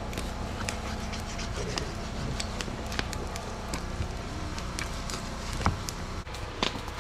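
Knife slicing raw pork on a plastic cutting board: scattered sharp clicks and taps over a steady low hum.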